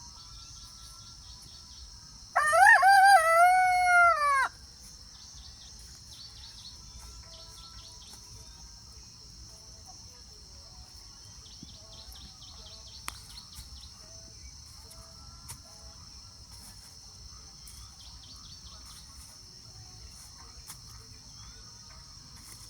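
A rooster crowing once, one loud call of about two seconds that drops in pitch at the end. Behind it runs a steady high-pitched drone, with faint rapid chirps recurring every few seconds.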